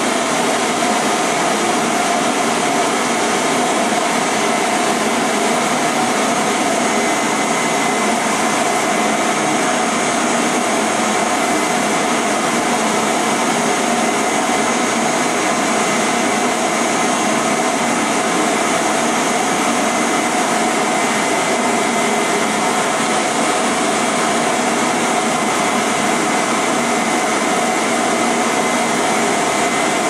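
Vacuum cleaner running steadily: an even, unbroken rushing hiss, with a faint steady whine underneath.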